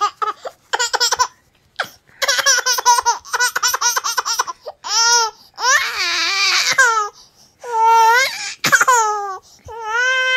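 Baby laughing while being tickled: quick runs of high-pitched chuckles in the first half, giving way to longer squealing laughs from about halfway through.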